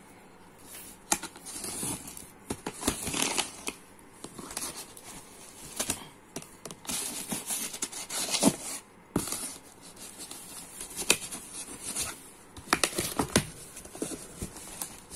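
Packing tape being cut and torn off a cardboard shipping box, with irregular scraping and crackling of the cardboard flaps.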